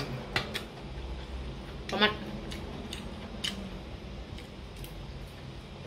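Metal spoon and fork clinking against a stainless steel serving bowl while food is scooped: a handful of sharp, spread-out clicks.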